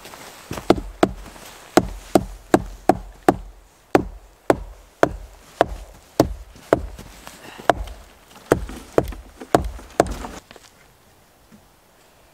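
A quick series of about twenty sharp knocks on wood, roughly two a second, as a tarp is fastened to a log shelter's frame with a hand tool; they stop about ten and a half seconds in.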